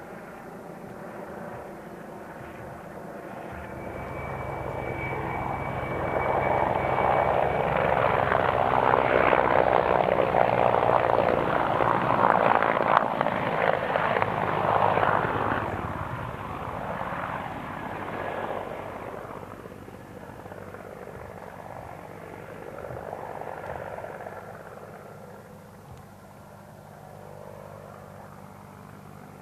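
Mi-24P attack helicopter flying past: the rotor and engine sound builds over several seconds, is loudest around the middle, then fades as it moves off. A thin high whine is heard for a few seconds as the sound builds.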